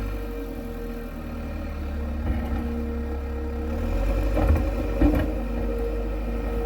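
Diesel engine of a heavy earth-moving machine running steadily, with three short sharp knocks about two, four and a half and five seconds in.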